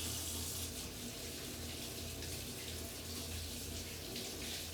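Water running steadily from a tap into a sink while hands are washed.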